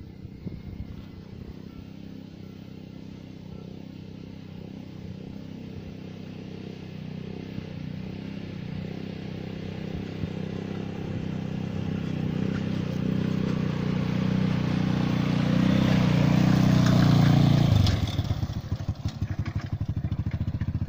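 A 150cc PGO ATV engine pulls a loaded four-wheeled trailer, growing steadily louder as it approaches. About eighteen seconds in it drops suddenly in level and settles into an even idle as the quad stops.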